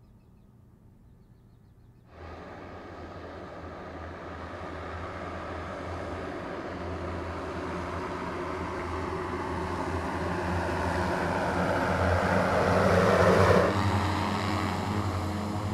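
Archer Midnight eVTOL's twelve electric propellers whirring with a steady low hum, starting suddenly about two seconds in and growing louder as the aircraft approaches, then dropping off a little near the end.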